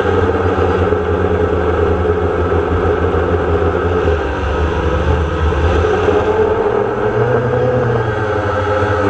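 DJI Phantom quadcopter's motors and propellers buzzing loudly and steadily, heard up close from the camera mounted on the drone, over a strong low rumble. The pitch shifts about four seconds in and again about seven seconds in as the drone manoeuvres.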